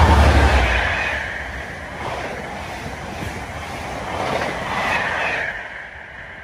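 Class 57 diesel locomotive, with an EMD two-stroke V12, passing close under power; its deep engine rumble fades within the first second. The rumble and clatter of Mk3 coaches rolling by follow, swelling again about five seconds in and dying away near the end.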